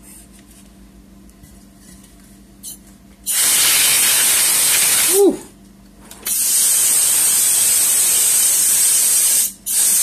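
Can of compressed-air duster sprayed in long hissing blasts: one of about two seconds starting a third of the way in, then after a short break one of about three seconds, and a third beginning near the end.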